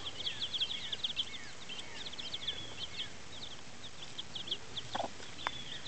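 A brood of Partridge Rock and Blue Laced Red Wyandotte chicks peeping nonstop in quick, high, falling notes. A couple of short knocks sound about five seconds in.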